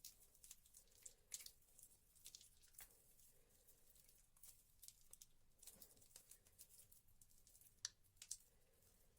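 Faint, irregular wet crackling and squishing of soaked soap being squeezed by hand, with a few sharper clicks.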